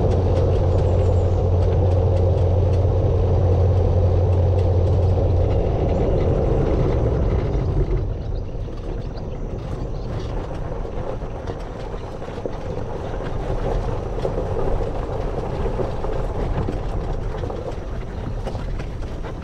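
Golf cart driving along a paved road, its running noise mixed with a heavy low wind rumble on the microphone. About eight seconds in the sound eases off and the low rumble drops away as the cart slows, then it runs on more quietly.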